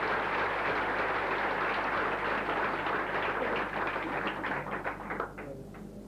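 Audience applauding steadily, then thinning out to a few scattered claps and stopping near the end.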